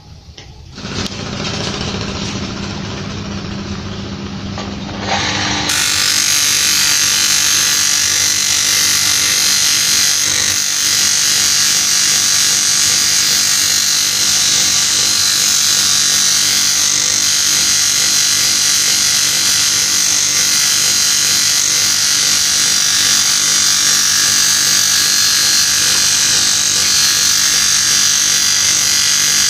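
Electric-motor grinding wheel regrinding a motorcycle camshaft's cam lobe, a steady loud grinding hiss, as the lobe is reprofiled for a 6 mm valve lift. For the first five seconds or so there is a quieter motor hum, before the loud grinding starts abruptly.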